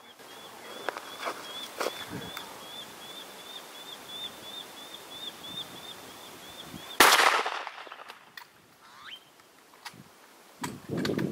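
A single rifle shot about seven seconds in, loud and sudden, with a short echo trailing off. Before it, a high chirp repeats steadily about three times a second.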